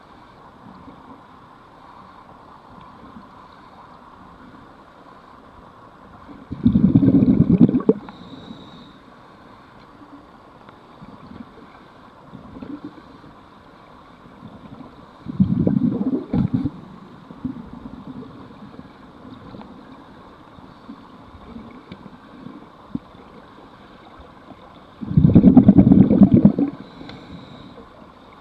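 Scuba divers' exhaled bubbles from their regulators, heard underwater: three loud rumbling bursts about nine seconds apart, each lasting a second or two, over a steady underwater hiss.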